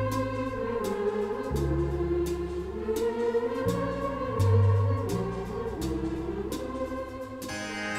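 Instrumental intro music: sustained organ-like chords over a bass line that shifts every second or two. Near the end a brighter, plucked-sounding keyboard comes in.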